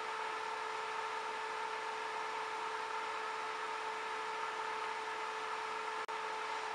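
Array 3710A electronic load's cooling fans running steadily under a 100-watt load, only the first set of fans on: an even whir with a faint steady hum. The sound dips for an instant about six seconds in.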